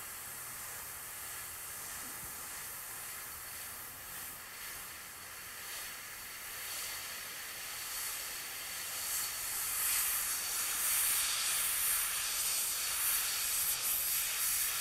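Gravity-feed airbrush hissing as it sprays white paint in freehand passes over a metal model. The hiss comes and goes and is loudest from about ten seconds in.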